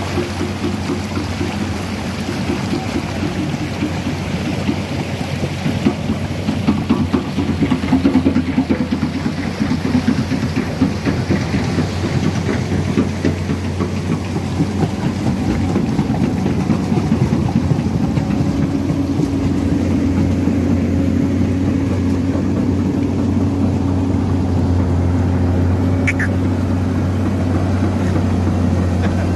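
Komatsu PC210 hydraulic excavator's diesel engine running under load as the machine crawls on its tracks through deep mud, with a stretch of dense rattling in the first half before the engine settles into a steadier, slightly louder drone.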